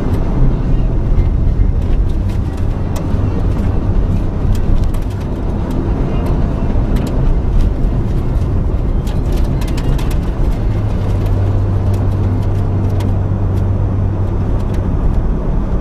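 A vehicle on the move: steady engine and road rumble, with a low hum that grows stronger for about four seconds past the middle, and scattered light clicks and rattles.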